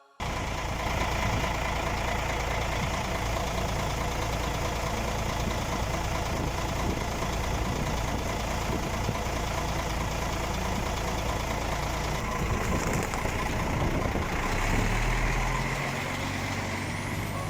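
Heavy truck engine running steadily at low revs, a continuous low rumble.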